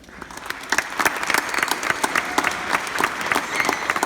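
Audience applauding, the clapping swelling over the first second and then going on as steady, dense clapping.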